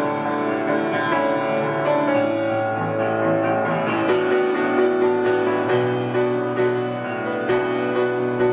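Piano music, a steady run of struck and held notes with no singing.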